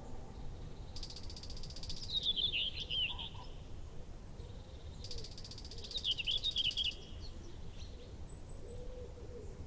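Meadow dawn ambience: twice, a rapid high buzzing trill of a second or so runs straight into a string of short high chirps, over a low steady outdoor rumble.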